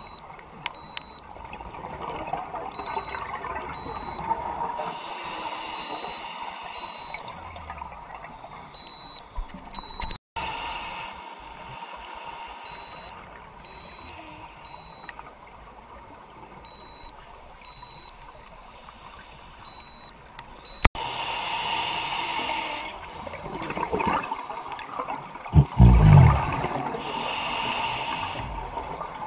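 Scuba diver breathing through a regulator underwater: several bursts of exhaled bubbles a few seconds apart, with a loud low rumble near the end.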